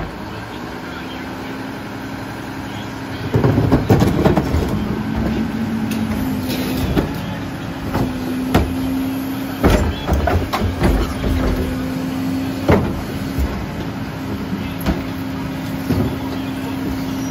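Rear-loader garbage truck running, with a steady hum that sets in about a second in. Plastic wheeled recycling carts are emptied into its hopper and wheeled about: a loud rattling dump around four seconds in, then scattered knocks and bangs.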